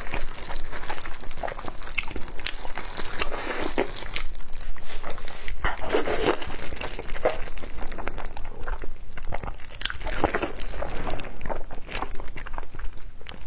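Close-miked eating of braised pork knuckle: biting and tearing the soft, sauce-coated meat off the bone and chewing it, with many small wet, sticky clicks.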